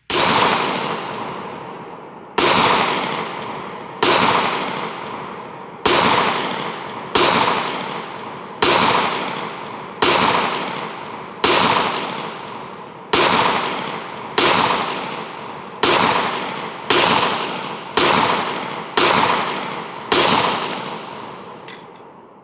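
A Glock 20 10mm pistol firing .40 S&W rounds, fifteen shots at an unhurried pace of roughly one every one and a half seconds. Each report rings out and dies away slowly before the next.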